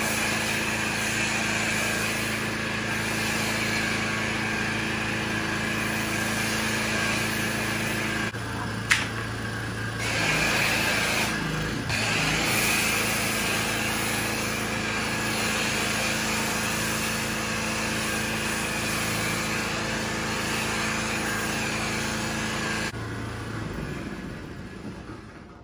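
Pressure washer running, a steady motor hum under the hiss of its spray. The spray breaks off briefly twice midway, with one sharp click. Near the end the hum stops and the sound dies away.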